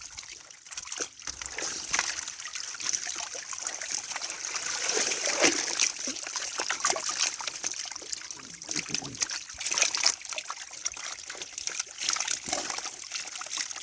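Pond water splashing and dribbling in many quick, irregular splashes while a fishing net is worked through the pond.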